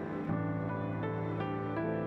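Soft background music: slow, gentle new-age piano chords, with a new bass note coming in about a quarter second in.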